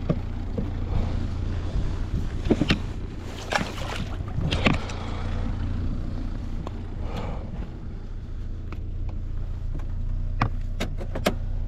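Boat motor running with a steady low hum, with scattered knocks and clicks from handling on board.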